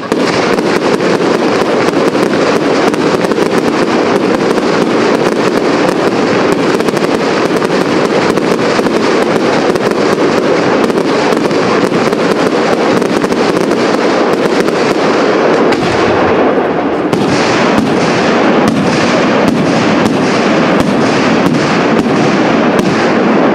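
Aerial fireworks display: a dense, unbroken barrage of bangs and crackling bursts. About two-thirds of the way through it changes to separate bangs about two a second, each trailing off.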